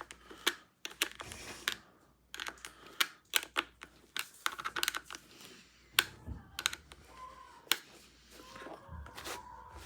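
Irregular small clicks and taps as a nut is worked onto a replacement rivet screw in a hockey skate with hand tools.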